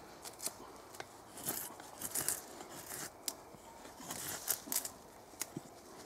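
A knife shaving curls off a damp wooden stick: several short scraping strokes about a second apart, with a few sharp clicks. The shavings are being cut as fire-starting tinder from rain-wet wood.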